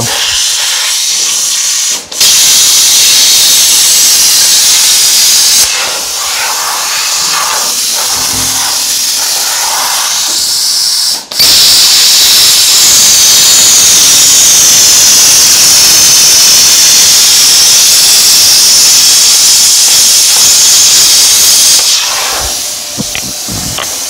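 Plasma cutter cutting sheet steel: a loud, steady hiss of arc and air. It cuts off abruptly twice and runs at a lower level for a few seconds in between. Its tip is worn, which the operator believes makes the cut break down.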